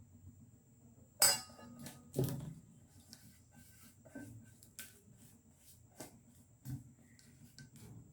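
Kitchen utensils and dishes being handled: two sharper clinks about one and two seconds in, then scattered lighter clicks and taps.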